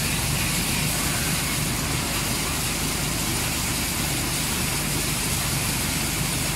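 An engine running steadily at an even pace, a low droning hum that does not change in level or pitch.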